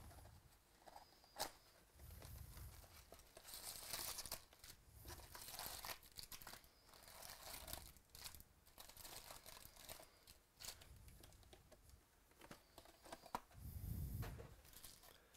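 Plastic wrap tearing off a cardboard box of trading cards, then foil card packs crinkling as they are lifted out and stacked, with a few soft thuds.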